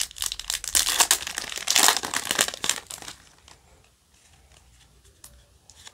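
Foil wrapper of a Yu-Gi-Oh! booster pack crinkling loudly as it is torn open by hand, for about three seconds. After that, only a few soft clicks of the cards being slid out and handled.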